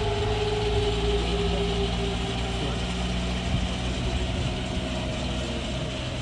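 Ilyushin Il-76 transport's four turbofan jet engines running at low power: a steady low rumble under a whine that slowly drops in pitch.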